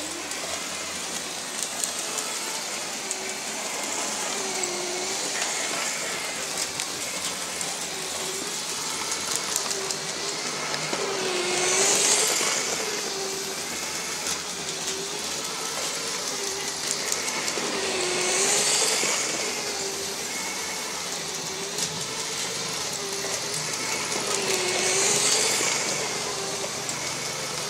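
LEGO 9V train motor pulling a BNSF locomotive and freight cars round a loop of metal-railed track: a steady electric whine that wavers regularly in pitch, with the rolling noise of the train swelling louder three times, about every six and a half seconds, as it comes round close.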